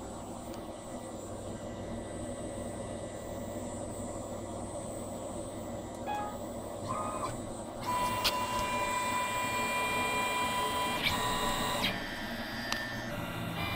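CNC machine's stepper motors running under a steady electrical hum, then whining at a series of steady pitches about six seconds in as the axes move, with the pitch changing again near the end.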